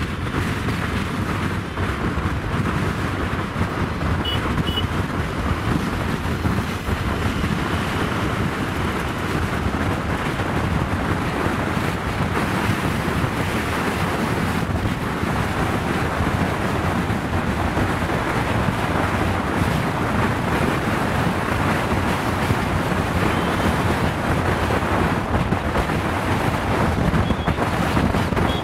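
Wind rushing steadily over the microphone of a motorcycle riding at highway speed, with the noise of the ride and passing traffic underneath.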